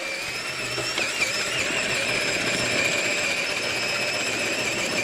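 RC4WD Trailfinder 2 crawler's electric motor and gear drivetrain whining steadily as it crawls slowly, the high pitch wavering a little about a second in.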